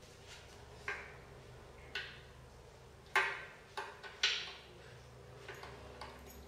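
Metal clicks and clanks, about six in all, from the lock being fitted at the column of a steel Quasar Eazyrizer motorcycle lift to secure it in the raised position. The two loudest clanks come a little past three seconds and a little past four, each with a short ring.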